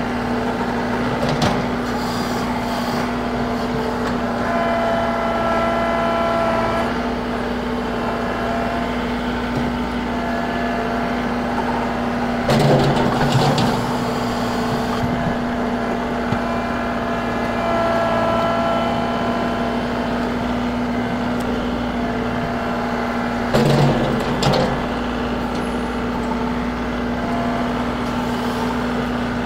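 John Deere 2038R compact utility tractor's three-cylinder diesel engine running steadily at working speed while the front-end loader works, with two brief louder surges of noise, about 12 and 24 seconds in.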